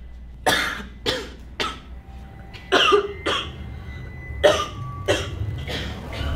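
Coughing: a string of about nine short coughs, one after another.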